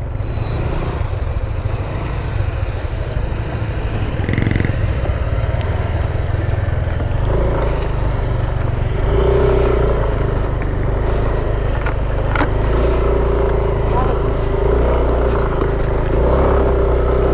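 Motor vehicle engines running steadily, the low engine note growing louder about seven seconds in.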